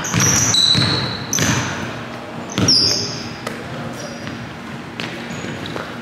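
A basketball bouncing a few times on a hardwood gym floor, with short high sneaker squeaks as the players move, in a large gym.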